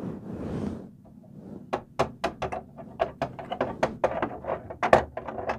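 A brief rustle of handling, then a run of sharp, irregular clicks and taps, several a second: a small plastic toy figure being tapped and moved across the hard plastic floor of a toy playset.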